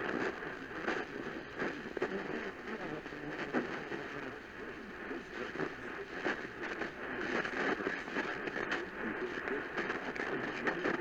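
Radio static: a steady noisy hiss with frequent small crackles from a weak or poorly received broadcast signal, with no clear speech coming through.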